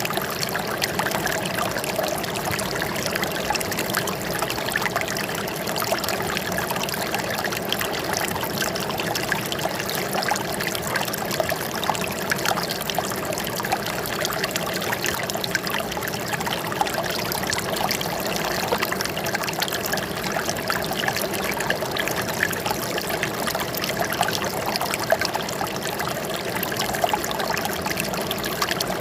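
Flowing water trickling and splashing steadily, with many small splashes.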